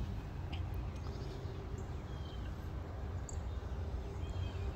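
Birds chirping now and then, short high calls, over a steady low outdoor rumble with a faint constant hum.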